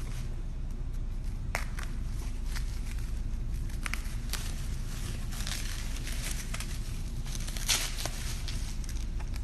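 Scattered rustling, crinkling and light clicks of packing material and small parts being handled, with a sharper click near the end, over a steady low hum.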